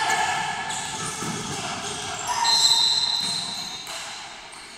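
Voices shouting and calling out in an echoing gymnasium during a youth basketball game, loudest about halfway through and fading toward the end.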